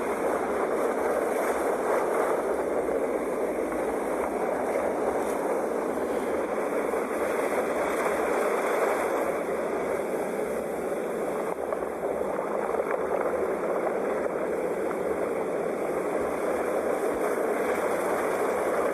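Sea waves breaking on a shore: a continuous rush of surf that swells and eases a little, with no single crash standing out.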